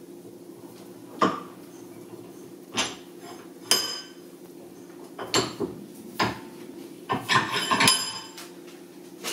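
Metal tools being handled: a handful of separate sharp clinks and knocks with a short metallic ring, then a quick run of clatter near the end, over a steady low hum.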